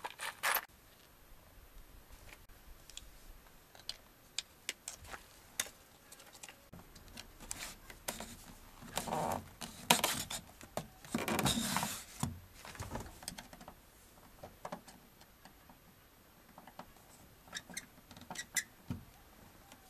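Scattered small clicks and taps of hand work: metal hardware being handled and a plastic pull handle being screwed onto a ZAZ-968M's door card. There are two louder stretches of scraping and rustling near the middle.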